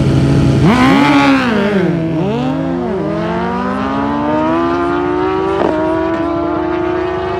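A drag-racing motorcycle engine revved hard, its pitch swooping up and down twice, then pulling with a long, steady climb in pitch as the bike accelerates.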